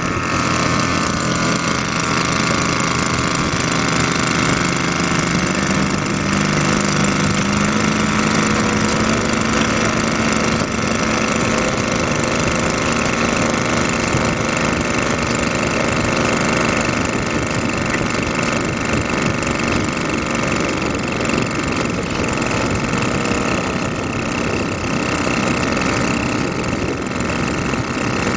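Rice transplanter's engine running steadily, its pitch rising slightly a few seconds in.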